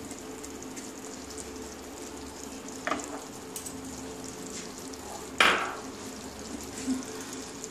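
Drumstick and potato curry in mustard sauce simmering in a pan over a gas burner turned up to bring it to a boil, with a steady sizzle. A wooden spatula knocks against the pan briefly about three seconds in, and again more loudly about five and a half seconds in.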